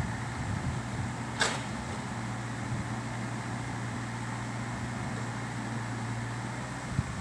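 Komatsu PC78US-8 mini excavator's diesel engine running steadily, with a brief hiss about a second and a half in and a couple of sharp knocks near the end.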